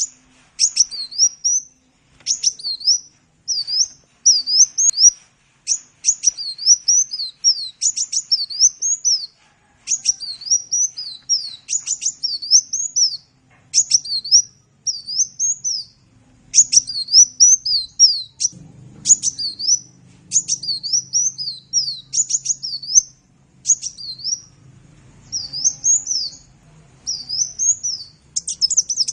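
A kolibri, as Indonesian bird-keepers call the sunbird, singing fast, high, twittering phrases about a second long, with brief pauses between them. A faint low hum comes in about two-thirds of the way through.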